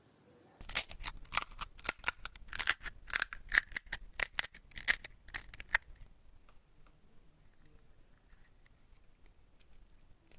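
A rapid run of sharp, crisp crackles for about five seconds, several a second, then only faint ticks.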